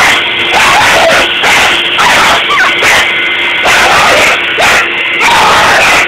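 Dog yipping and howling in short bending calls over the loud, steady noise of a running Dyson vacuum cleaner.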